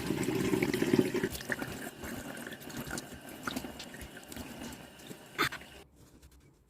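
Water from a bathroom tap running and splashing into a sink during face washing. It is strongest for the first second or so and then weaker, with small splashes. A sharp knock comes about five and a half seconds in, and the water stops about six seconds in.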